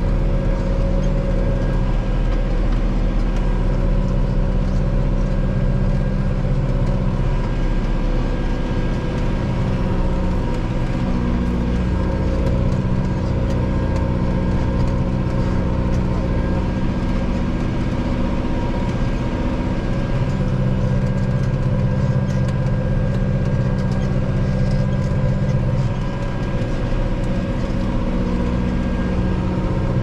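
Valtra N91 tractor's diesel engine running steadily under load while ploughing, heard from inside the cab. Its note shifts slightly about a quarter of the way in and again about two-thirds of the way through.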